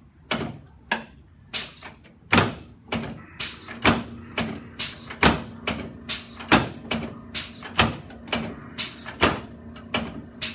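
A run of sharp knocks from chiropractic treatment equipment, about two a second and unevenly spaced, with a steady low hum joining about three and a half seconds in.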